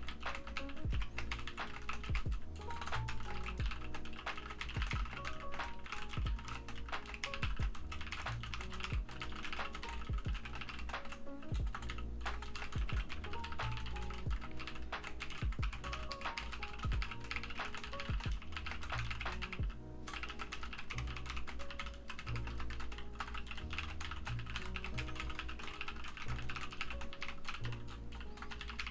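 Fast, continuous typing on a computer keyboard, with several key clicks a second, over lo-fi background music with a steady beat.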